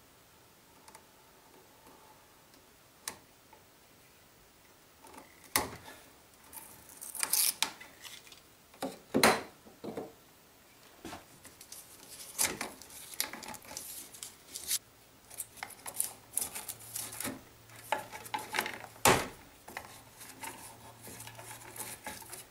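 A blade lightly scoring the yellow plastic sheathing of electrical cable, then the jacket being pulled and peeled back off the wires by hand. Irregular cuts, scrapes and crinkling rustles start about five seconds in, with sharp clicks among them.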